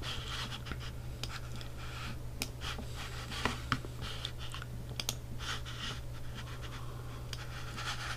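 Scattered clicks and taps from a computer keyboard, with faint scratching, over a steady low hum.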